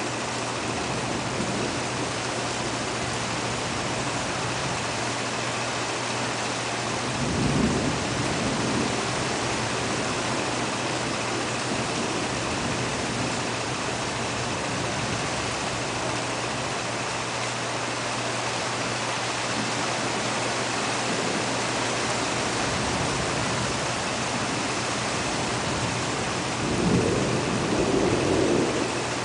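Steady heavy rain during a thunderstorm, with a short rumble of thunder about a quarter of the way in and a longer rumble near the end.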